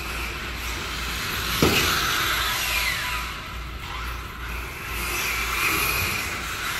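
Radio-controlled car running, with a motor whine and tyre noise, a sharp knock about a second and a half in, and the whine falling away about three seconds in.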